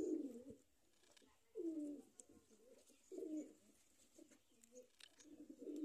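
Domestic pigeons cooing: low, warbling coos repeated about every second and a half.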